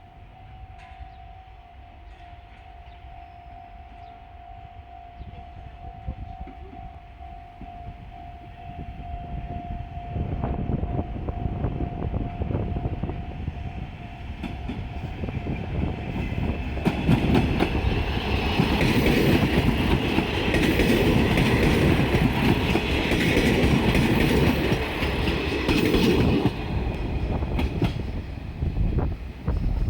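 A diesel train passing close by, its engine and wheels building from about a third of the way in to a loud stretch of rapid clicking over the rail joints before easing off near the end. A steady tone sounds through the first half.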